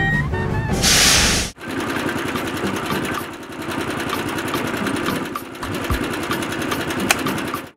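A small yellow plastic DC gear motor whirs steadily as it turns a toy cement mixer's drum, starting about a second and a half in after a brief whoosh. The whirring dips slightly about halfway through and then stops abruptly.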